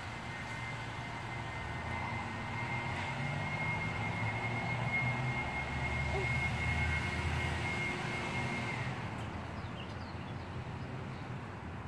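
Low engine rumble that swells over the middle seconds and then fades, with a steady high-pitched tone over it that stops about three-quarters of the way through.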